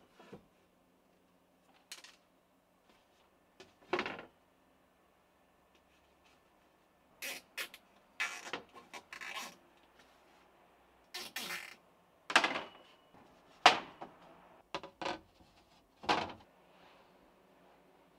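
Thin perforated plywood plates and a steel-tube bed frame being handled and set in place: about a dozen separate knocks and clatters at irregular spacing, more frequent in the second half.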